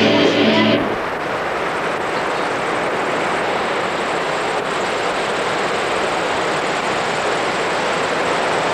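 Live rock band with electric guitars, cut off abruptly under a second in; then the steady rush of ocean surf breaking on a beach.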